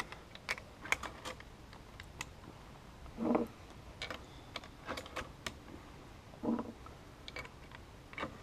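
Light metallic clicks and taps of 8x50R Lebel cartridges being pushed one at a time into the Lebel Model 1886/93 rifle's tube magazine through the open action, with two duller knocks about three and six and a half seconds in.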